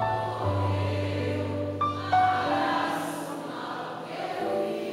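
Live band playing a slow worship song in a passage between sung lines: held chords over sustained bass notes.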